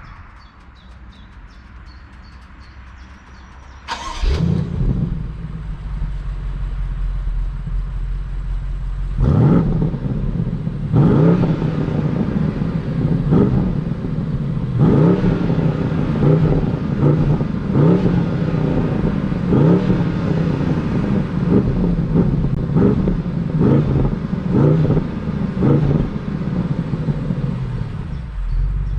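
BMW 750i xDrive's 4.4-litre twin-turbo V8 comes in suddenly about four seconds in with a flare of revs and settles to idle. From about nine seconds it is revved in repeated short blips, each rising and falling, then drops back to idle near the end.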